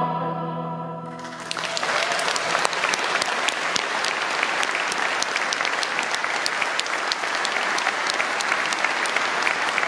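A choir's last held chord fading away, then audience applause breaking out about a second in and carrying on steadily.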